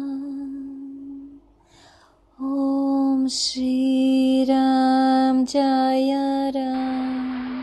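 A voice singing or chanting long held notes on nearly one pitch, in phrases of a second or two with short breaks, with a quieter gap about one and a half to two and a half seconds in.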